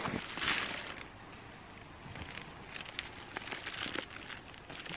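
Rustling and crinkling of plastic and backpack fabric as items are handled, loudest in the first second, then a few small clicks and ticks.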